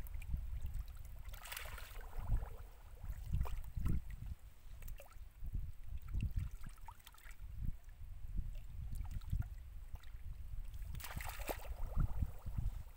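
Hands sloshing and splashing in shallow muddy water while groping in the silt for fish, with irregular low thuds. Two louder splashes come about a second and a half in and near the end.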